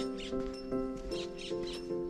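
Upbeat electronic background music with a steady beat and sustained chords.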